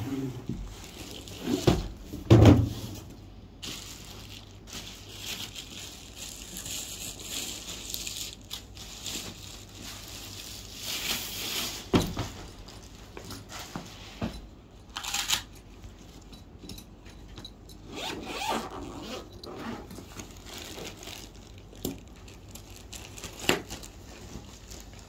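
Unpacking and handling noise: rustling and scraping with scattered knocks, and two louder thumps about two seconds in.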